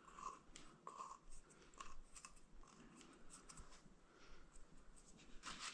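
Faint scattered clicks and light handling noise from small parts being handled, likely a metal worm-gear hose clamp being fitted around an RC tyre and wheel.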